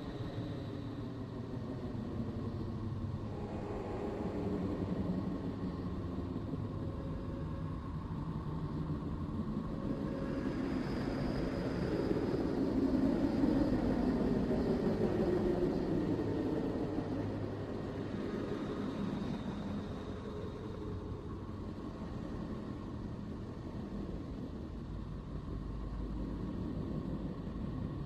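Space-sound recording presented as the sound of the planet Neptune: a continuous low drone with faint held tones above it, swelling louder about halfway through, then easing back.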